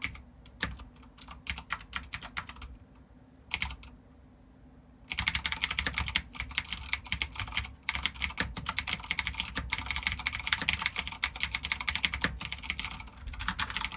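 Typing on a GANSS GK87 Pro mechanical keyboard with clicky Cherry MX Green switches. There are scattered keystrokes, then a pause, then fast continuous typing from about five seconds in until shortly before the end.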